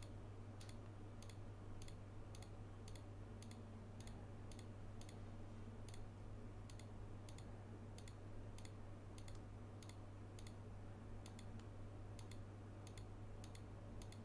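Computer mouse button clicked over and over at an even pace, about three clicks a second, each Ctrl+click adding a vertex. A steady low hum runs underneath.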